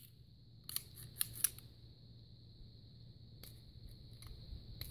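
Metallic clicks and clacks of a Remington R1 1911 pistol chambered in .460 Rowland being handled to clear a failure to feed: a quick run of clicks about a second in, then a few single clicks near the end.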